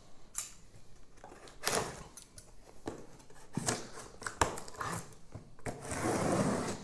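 Scissors cutting the packing tape on a cardboard box: scattered short snips and scrapes, then a longer rasp of about a second near the end as the blade runs along the tape seam.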